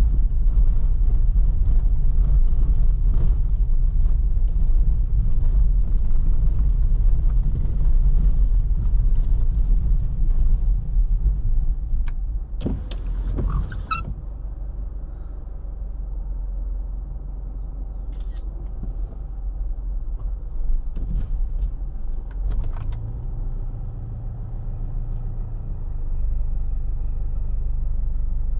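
A car driving, heard from inside: steady low rumble of the engine and tyres on the road, with a hiss above it. A cluster of clicks and knocks comes about halfway through, after which the rumble eases, with a few more scattered knocks.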